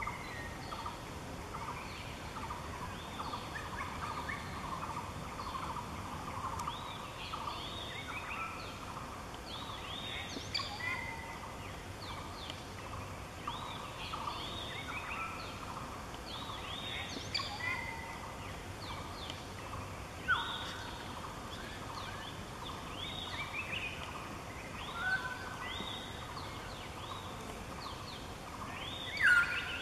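Forest birds calling: many short chirping calls overlapping one another throughout, with one louder call near the end.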